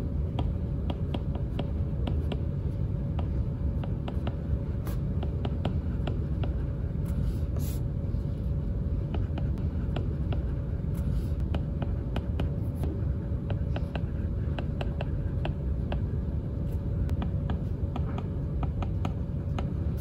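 1st-generation Apple Pencil nib tapping and sliding on the glass screen of an iPad while writing: a quick, irregular series of light taps. Under it runs a steady low hum.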